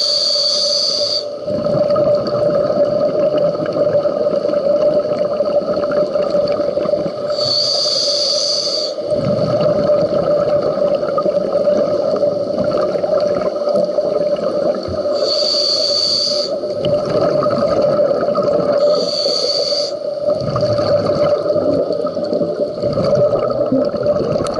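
Underwater recording of a scuba diver breathing through a regulator: a hiss on each inhale, four times, with longer bubbling exhales between. A steady hum runs underneath.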